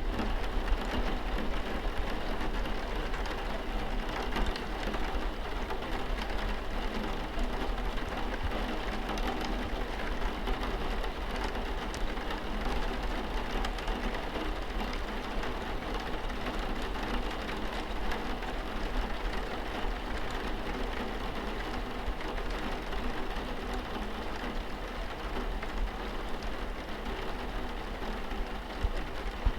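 Steady rain falling and pattering on a window and wall, with a continuous low hum underneath.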